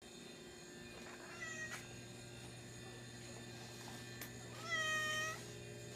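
Domestic cat meowing twice: a short, faint meow about a second and a half in, then a longer, louder meow near the end.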